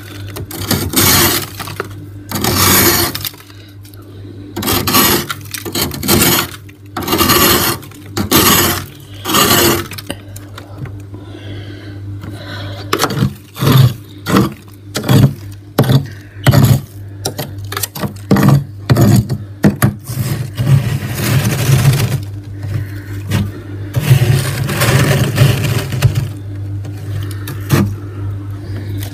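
Metal spoon scraping and crunching through thick freezer frost: long strokes about a second each at first, then a run of quick short scrapes, over a steady low hum.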